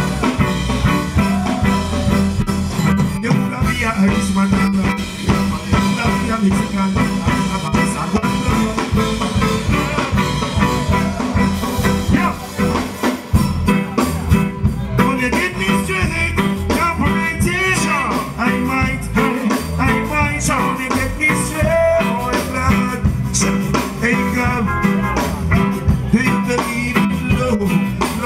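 Live reggae band music with a strong steady bass line and drums, and a male vocalist singing over it through the PA, most clearly in the second half.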